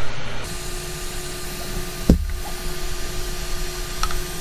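Steady whirr with a faint hum from the powered-on Ender 3 V2 Neo 3D printer, coming on about half a second in. About two seconds in, a single sharp knock with a brief gliding whine as the print head and bed, their stepper motors disabled, are pushed by hand. A few light ticks follow near the end.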